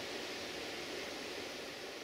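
Steady, even rushing noise of outdoor ambience, with no distinct events.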